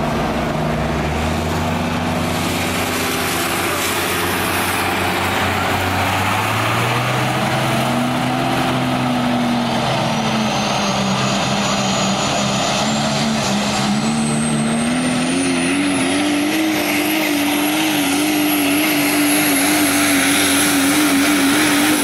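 Super stock diesel 4x4 pulling truck running flat out under load as it drags the sled. The engine note climbs slowly through the pull, and a high turbocharger whistle comes in about halfway, rises, and holds near the end.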